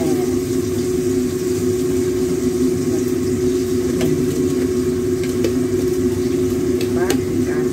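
A steady machine hum, with food sizzling in a wok over a lit gas burner. A few light clicks come about halfway through and again near the end, from a plastic bottle being handled.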